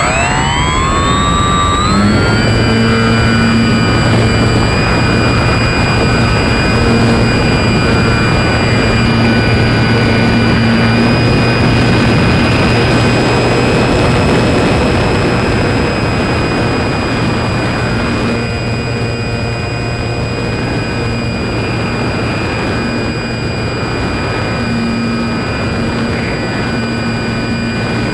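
RC model plane's motor and propeller, recorded by a phone strapped to the airframe. The motor spins up with a rising whine over the first two seconds, then runs at a steady high pitch over a dense rush of noise, easing slightly about two-thirds of the way through.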